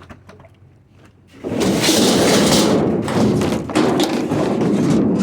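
A hot water heater being slid and shoved across a trailer bed, a loud rough scraping rumble with knocks that starts about a second and a half in and holds, with a brief break near the end.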